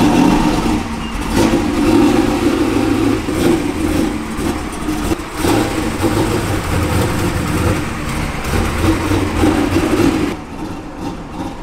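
Classic Chevrolet Camaro's engine running and being revved just after being bump-started, because the starter cannot turn the flywheel. It runs loud and uneven, then settles somewhat quieter about ten seconds in.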